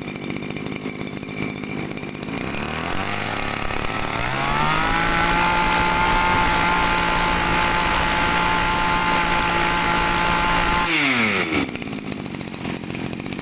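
Komatsu 26 cc two-stroke brushcutter engine idling, then revved up to full throttle a few seconds in. It holds a steady high pitch for about six seconds and drops back to idle.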